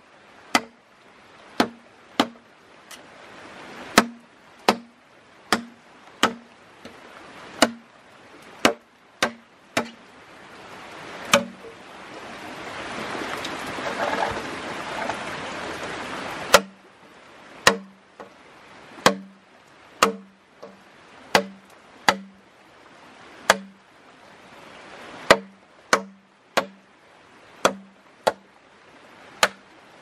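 A large bush knife chopping into a green bamboo pole, about one blow a second at an uneven pace, each blow a sharp knock with a short low ring from the hollow pole. A hiss swells for a few seconds midway and stops suddenly.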